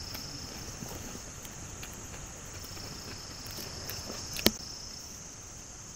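Steady high-pitched chirring of insects, with a single sharp click about four and a half seconds in.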